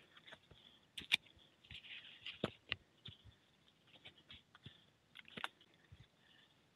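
Faint, irregular light clicks and ticks, a dozen or so spread over several seconds, from a mountain bike moving over a wet, muddy trail.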